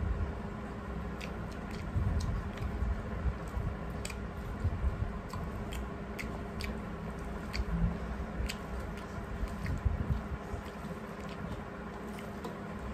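Hands squishing and mixing rice with jute-leaf fish curry on steel plates, with chewing and scattered light clicks, over a faint steady hum.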